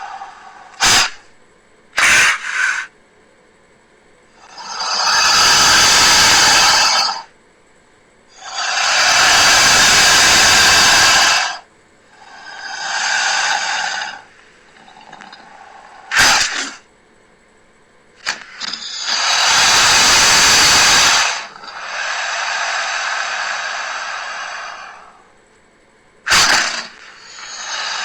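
Crocodile calls used as creature sound effects: about five long hissing calls, each two to three seconds, separated by pauses, with a few short sharp cracks between them.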